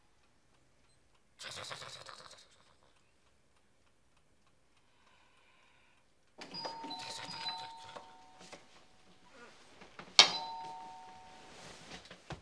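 Electric doorbell ringing three separate times: a short ring about a second and a half in, a longer ring about six and a half seconds in, and another that starts sharply just after ten seconds. The later two carry two steady chime notes that fade out.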